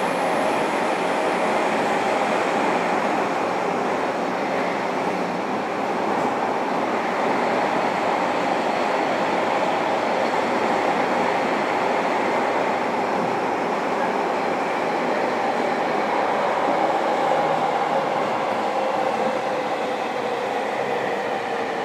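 Interior running noise of a JR Kyushu 305 series electric train, heard from inside a motor car: a steady rumble of wheels on rail with the traction motors' whine over it. Near the end the motor whine starts falling in pitch as the train slows.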